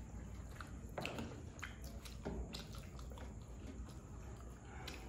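Faint eating sounds: fingers scooping schezwan fried rice off steel plates and mouths chewing, with a few soft wet clicks and smacks.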